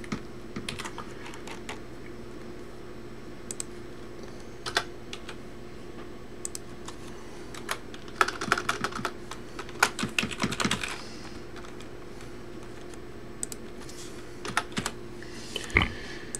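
Typing on a computer keyboard: irregular clicks of keys, sparse at first and coming in quick clusters about halfway through, with a steady low hum underneath.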